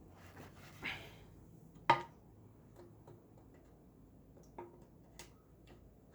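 A few scattered sharp knocks and clinks, the loudest about two seconds in with a brief ring after it, another short ringing knock near the end.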